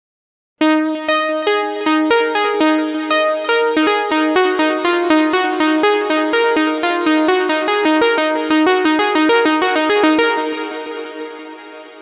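GForce Oberheim SEM software synthesizer playing its "Systematic" pluck preset. It is a quick, steady run of short plucked notes hopping among a few pitches, which starts about half a second in. The notes stop near the end and the sound fades out in an echoing tail.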